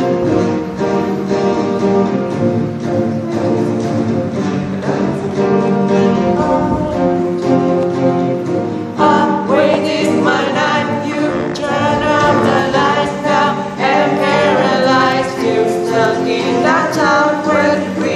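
Pop-song music with a singing voice; the melody line grows stronger and more prominent from about nine seconds in.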